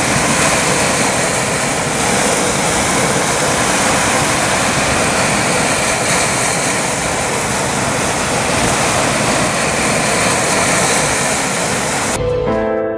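Steady, loud rushing noise with no distinct events. It cuts off suddenly about a second before the end, and a gentle piano tune begins.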